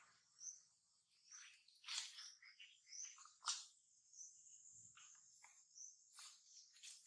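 Faint outdoor ambience: a steady high insect trill, with a few short chirps and clicks scattered through it.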